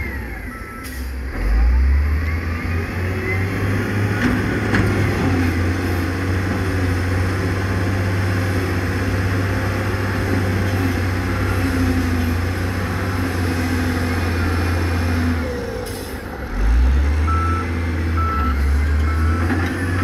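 Heavy diesel engines of dump trucks and earthmoving machines running, a deep steady rumble that dips and then surges again about three-quarters through. Near the end a reversing alarm beeps about twice a second.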